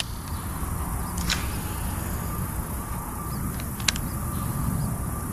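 Steady low outdoor rumble with two brief clicks, one about a second in and one near four seconds in.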